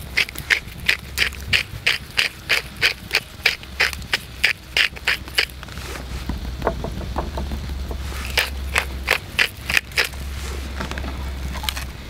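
Hand pepper mill grinding over a roast: quick, even crunching clicks, about four a second, stopping about halfway, then a few softer clicks and a second short run of grinding. A low steady hum lies underneath.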